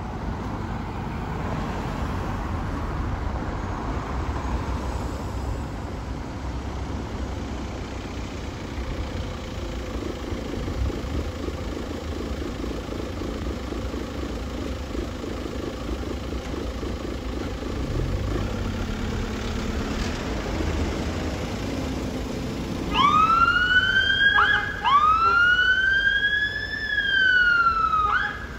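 Steady road traffic and idling car engines, then near the end a fire engine's siren sounds loudly in three rising-and-falling wails as the appliance turns out.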